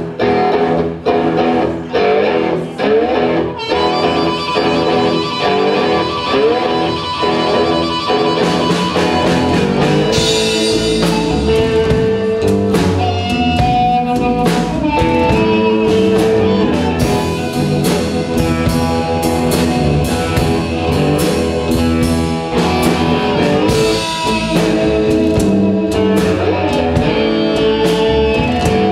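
Live blues played on cigar-box guitars and a drum kit. For the first nine seconds or so the guitars play thinly with plucked strokes, then the drums and low end come in fully. Over the top, a harmonica played through a handheld microphone holds long notes.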